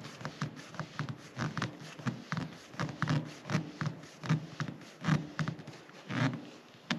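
A white PVC threaded fitting being screwed by hand onto a plastic tank's threaded outlet, the threads wrapped in tape and coated with pipe dope: an irregular run of short scrapes and creaks, about three a second, with each twist of the fitting.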